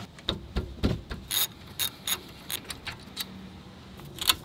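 Ratchet wrench clicking in short irregular runs as the 14 mm brake caliper bolts are backed out, with a sharper clack near the end.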